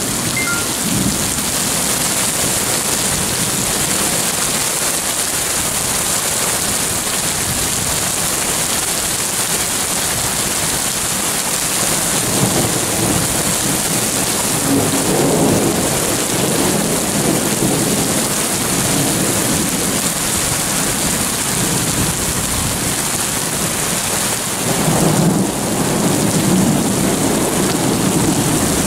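Heavy thunderstorm downpour: dense rain pouring onto the street and pavement, with thunder rumbling twice, around twelve seconds in and again near the end.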